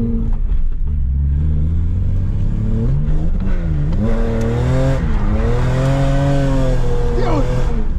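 BMW E30 drift car's engine heard from inside the cabin, running low for the first few seconds, then revving up and falling back several times as the car is driven through a drift. A hiss of tyre noise builds under the engine in the second half.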